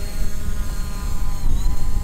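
DJI Mavic Pro quadcopter's propellers buzzing steadily as it lifts off and hovers, the pitch dipping briefly and recovering about one and a half seconds in. Breeze rumbles on the microphone underneath.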